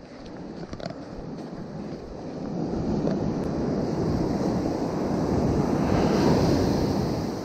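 Ocean surf breaking and washing up the beach, swelling to its loudest about six seconds in, then easing.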